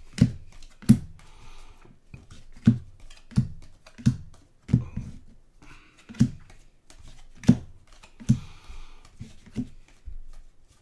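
Trading cards being flipped through and set down one at a time on a table: about a dozen light taps at an uneven pace of roughly one a second, with faint rustling of card stock between them.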